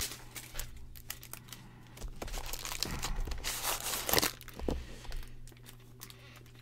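Clear plastic wrap being torn and crinkled off a cardboard retail box, in irregular crackling bursts with light taps and knocks as the box is handled.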